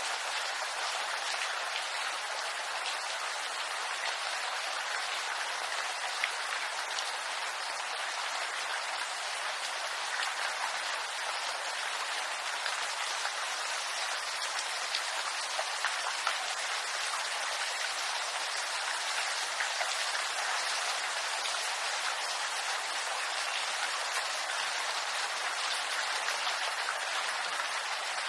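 Steady rain falling on bamboo leaves: a dense, even patter of drops, with scattered sharper single-drop ticks.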